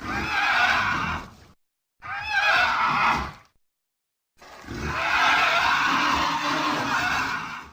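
Dragonzord roar sound effect, a screeching animal-like cry heard three times with silence between: two short cries, the second wavering in pitch, then a long one lasting about three seconds.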